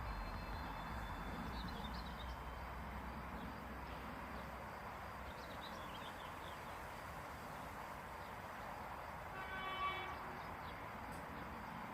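Steady outdoor nature ambience: an even hiss with a few faint bird-like chirps. About nine and a half seconds in comes a brief pitched call or horn-like tone, the loudest sound in the stretch.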